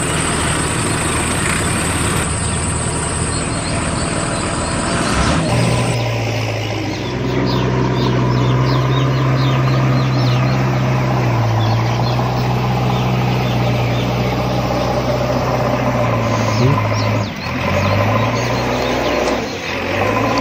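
Heavy truck engines running steadily. The sound changes abruptly about five seconds in and drops out briefly twice near the end, as one recording gives way to another.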